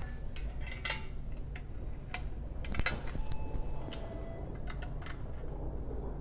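Scattered light metallic clicks and taps, about half a dozen spread irregularly, from small bolts and a wrench or screwdriver being handled while fastening the front fender bolts on a bicycle.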